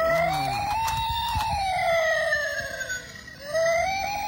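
Battery-powered toy ambulance's electronic siren wailing: one slow rise and fall in pitch, a short break about three seconds in, then it starts rising again.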